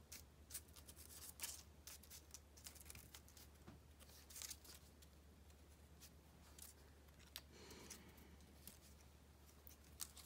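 Faint, scattered rustles and light taps of small cardstock and paper pieces being picked up and set down on a paper-covered tabletop, over a low steady hum.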